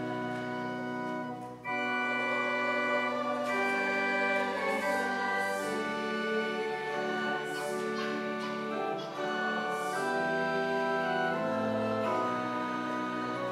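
Pipe organ playing a hymn in held chords, with short breaks between phrases about a second and a half in and again near nine seconds.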